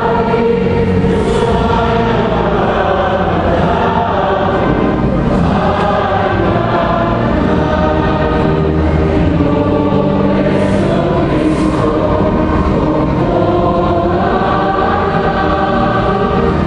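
A church choir singing, with long held notes.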